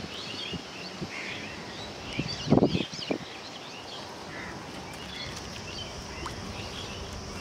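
Rural outdoor ambience full of birds chirping and calling, with a brief low thump about two and a half seconds in.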